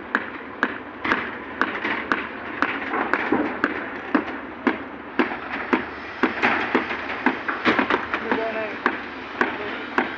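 Hammering: sharp, irregular blows, roughly two a second, with people's voices in the background.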